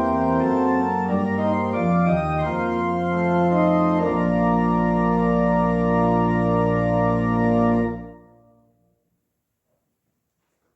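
Organ music: a run of sustained chords ending on one long held chord with a deep bass, released about eight seconds in, after which it goes silent.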